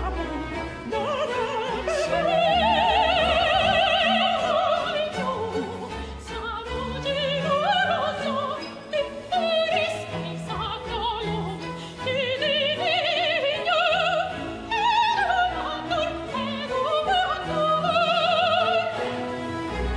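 Baroque opera aria: a high voice sings with wide vibrato in long held phrases and quick runs, accompanied by an orchestra with bowed strings and a steady bass line.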